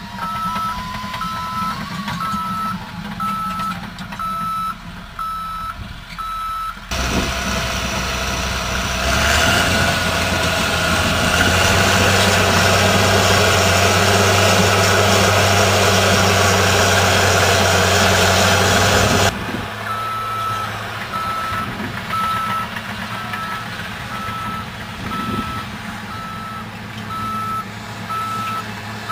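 Caterpillar D6N crawler dozer working: its diesel engine runs while its back-up alarm beeps steadily, a little under two beeps a second. For about twelve seconds in the middle the engine is heard up close and much louder, with no beeping, and it picks up shortly after that loud stretch begins.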